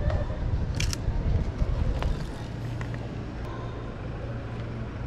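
A motor vehicle's engine rumbling loudly for the first two seconds, settling into a steady low engine hum. A brief cluster of sharp clicks comes about a second in.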